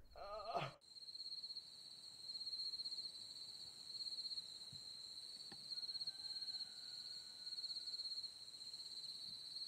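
Crickets chirping faintly at night in a high, steady, pulsing trill.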